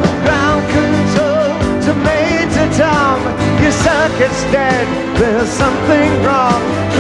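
Live rock band playing, with a sung lead melody that slides and wavers over the band.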